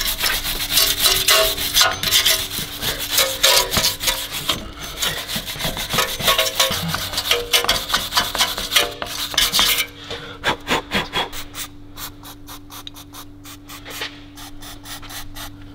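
Hand wire brush scrubbing rust off a corroded wheel hub, in quick back-and-forth strokes. About ten seconds in, the strokes thin out to separate scrapes. A faint steady hum runs underneath.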